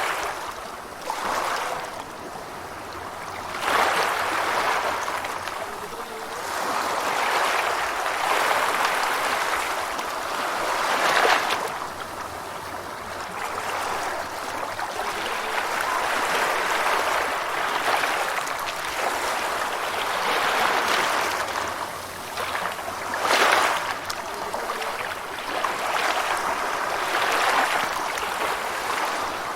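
Gentle ocean waves washing in and drawing back, swelling and fading every few seconds, with slightly louder breaks about 4, 11 and 23 seconds in.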